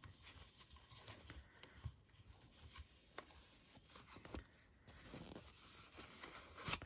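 Faint handling sounds of a small plastic visual timer being taken out of its cloth drawstring bag and turned over: soft rustling with a few light taps and clicks, the loudest near the end.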